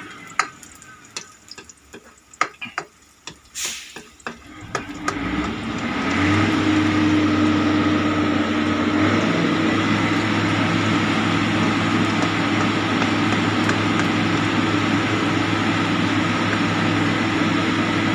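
Minced garlic frying in oil in a wok, with a spoon clicking against the pan over the first few seconds. About six seconds in, a steady mechanical hum with a low drone comes up and stays, louder than the frying.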